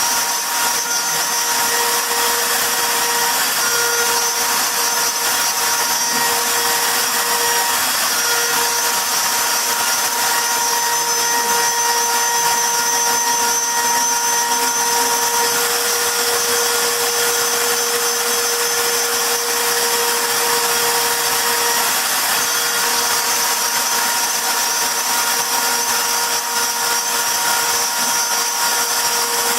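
CNC router spindle running steadily while engraving wood, a constant machine whine with a held tone over a hiss of cutting.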